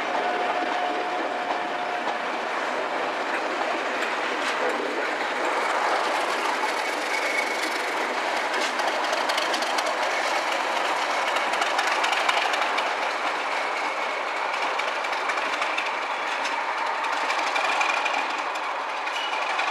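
A passenger train of coaches rolling past, its wheels clattering steadily over the rails, with a thin faint squeal near the start and again later on. The DRS Class 37 diesel locomotive at the rear of the train goes by about halfway through.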